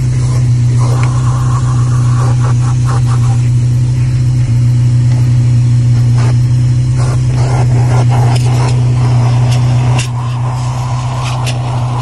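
Fujihama 1200 W wet/dry vacuum cleaner running steadily, its nozzle sucking up dirt and grit from a car floor mat. Short clicks and scrapes come as the nozzle knocks against the mat and the plastic trim. The level drops slightly about ten seconds in.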